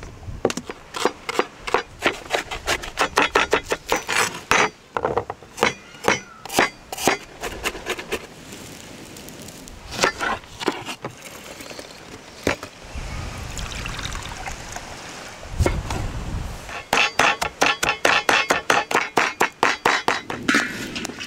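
Mussel shells clinking and a knife striking a wooden cutting board, ending in a run of fast chopping through fresh herbs, about five strokes a second.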